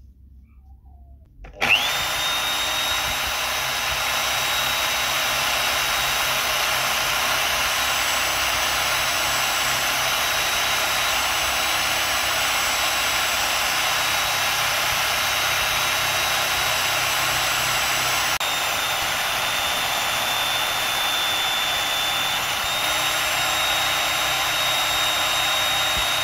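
Homemade drill press motor starting up about a second and a half in with a rising whine, then spinning a sanding drum steadily while a plywood edge is sanded against the abrasive sleeve; the pitch sags a little under load in the later part, and the motor cuts off suddenly at the end.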